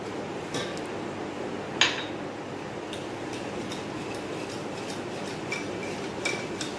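Wire whisk beating maida-and-curd jalebi batter in a stainless steel bowl: a steady stirring noise, with the whisk clinking against the side of the bowl several times, sharpest about two seconds in.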